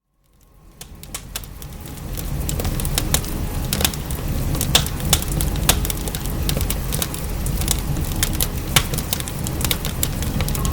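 A wood fire in a fireplace crackling, with sharp irregular pops of burning firewood over a steady low rumble and hiss of rain. It fades in over the first two seconds.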